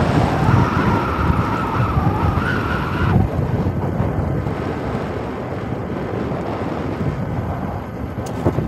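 Wind buffeting a phone's microphone, an uneven low rumble. For about the first three seconds a fainter, slightly wavering high tone sounds above it and then cuts off abruptly.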